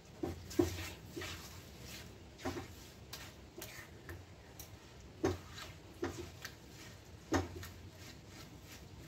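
Silicone spatula stirring wet grated raw mango and sugar in a non-stick pan: a handful of short stirring strokes at irregular intervals, the strongest a little after the start, about five seconds in and near the end.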